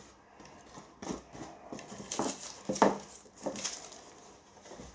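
Handling noise from a thin rigid plastic lid being lifted off a wooden board and moved about: several separate sharp clatters and knocks, the loudest near the middle.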